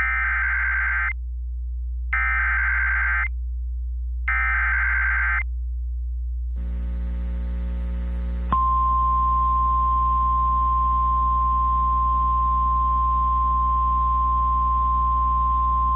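Emergency Alert System SAME header from NOAA Weather Radio: three short bursts of digital data tones about a second apart, encoding a severe thunderstorm warning. Just past halfway the single steady 1050 Hz weather-radio alert tone starts and holds. A low hum runs under it all.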